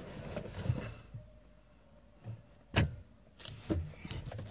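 Handling noise from a phone being moved and repositioned against a car's steering wheel: scattered rubs and light bumps, with one sharp knock a little past halfway.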